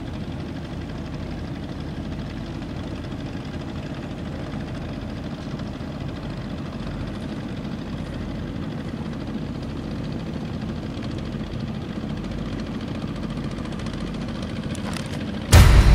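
A steady low rumbling drone with no clear tone, then a sudden loud boom shortly before the end that slowly dies away.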